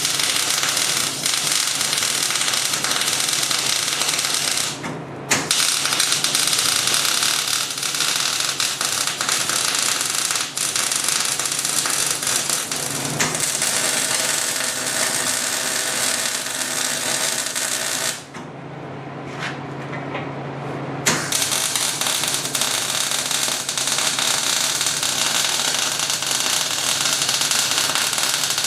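Electric arc welding on steel plate: a steady, dense crackle of the arc. It breaks off briefly about five seconds in, and for about three seconds near 18 s between welds, when a low hum from the machine is left.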